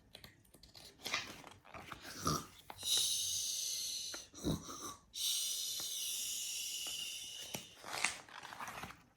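A woman imitating snoring: two long, hissy, drawn-out breaths, a short pause between them.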